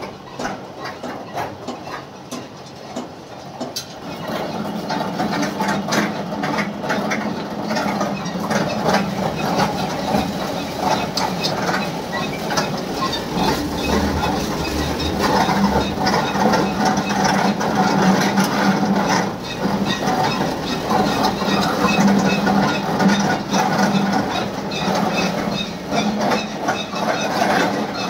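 Electric silage baler machine running, its motor and gearbox giving a steady hum under a continuous rattle from the conveyor and baling mechanism. It grows louder about four seconds in and then holds steady.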